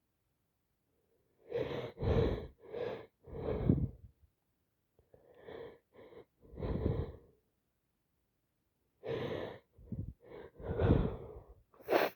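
A person with a heavy head cold making short, loud bursts of congested, snotty nasal breathing and sniffling. They come in three clusters of several bursts each, and the last ends in one sharp burst.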